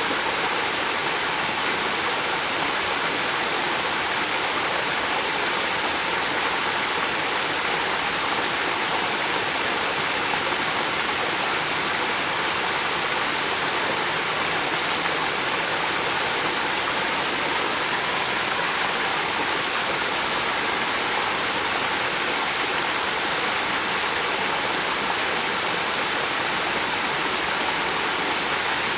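River water flowing steadily, an even rushing hiss with no breaks or changes.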